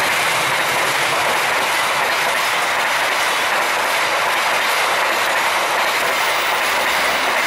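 Passenger train coaches passing close by at speed: a loud, steady rush of steel wheels running on the rails, with clickety-clack from the rail joints.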